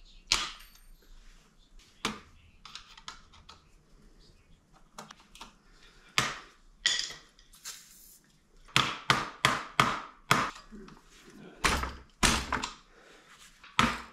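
Hand tools knocking and prying at a Honda Z50 minibike's over-tight drive chain and rear sprocket: scattered sharp metal knocks, a short aerosol spray hiss about six seconds in, then a run of loud sharp strikes about two a second near the end as the chain is worked off.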